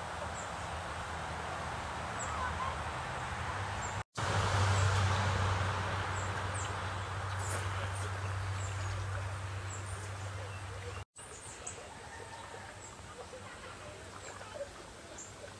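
Outdoor lakeside ambience: a steady rushing background noise with faint, short, high bird chirps now and then. The sound drops out for an instant twice, at cuts in the recording.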